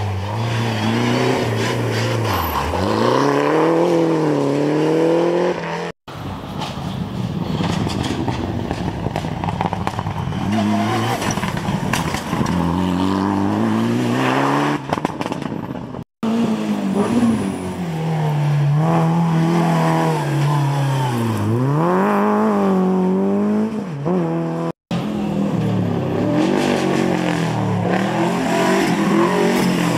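Rally cars' engines revving hard through a hairpin: the pitch drops as each car brakes and downshifts, then climbs again as it accelerates away. The sound breaks off abruptly three times as one car gives way to the next.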